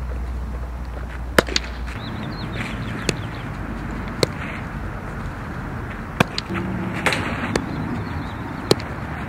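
A softball being struck and fielded: about six sharp cracks spread unevenly over several seconds, above a steady outdoor background noise.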